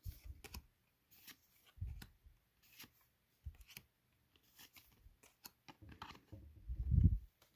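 Pokémon trading cards being handled and slid one by one through the hand, with soft papery flicks and rustles, and a dull knock about seven seconds in.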